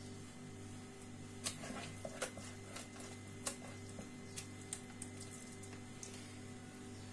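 Faint wet handling sounds and scattered small taps and clicks as hands rub a piece of fish with a spice marinade and set it down on a metal baking tray, over a steady low hum.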